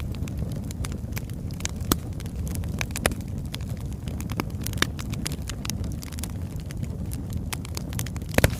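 Birch-wood fire burning: a steady low rumble with sharp crackles and pops scattered through it, the loudest a quick pair of pops near the end.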